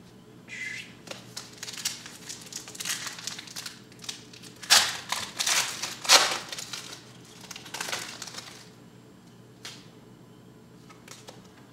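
Foil wrapper of a 2010 Panini Classics football card pack being torn open and crinkled by hand. It makes a run of crackling, loudest around five and six seconds in, which dies away about nine seconds in and leaves a few faint clicks.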